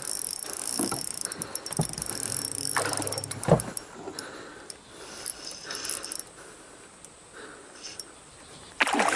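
Spinning reel being cranked as a hooked black bass is played beside a boat, with water splashing and a few knocks in the first few seconds, then quieter.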